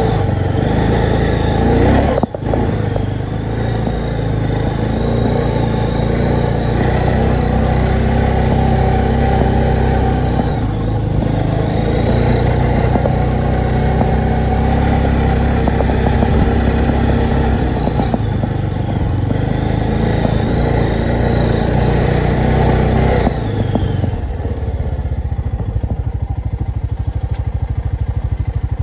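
Honda TRX 500 4x4 quad's single-cylinder four-stroke engine running steadily under way on a trail. About three-quarters of the way through it drops back to a slower, even idle.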